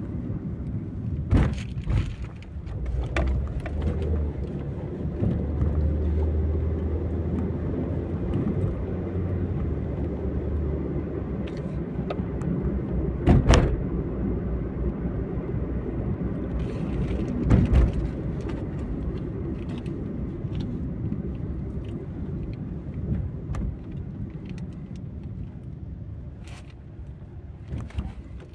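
Road and engine noise inside a moving car's cabin: a steady low rumble, broken by a few sharp knocks. It grows quieter near the end as the car slows in traffic.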